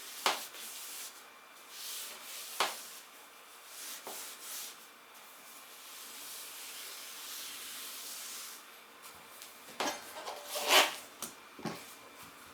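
Hand work on a motorcycle wheel during a manual tyre change: rubbing and scraping with a few sharp knocks and clicks, the loudest cluster near the end.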